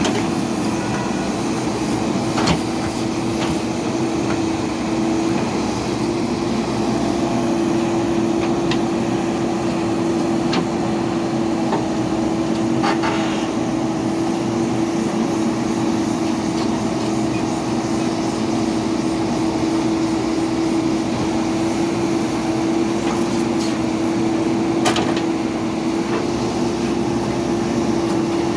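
Heavy diesel engine of a JCB backhoe loader running at a steady speed while working, with a few sharp knocks about two and a half, thirteen and twenty-five seconds in.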